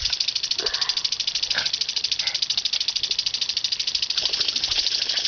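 Lawn sprinkler head spraying, a steady hiss that pulses in a rapid, even rattle.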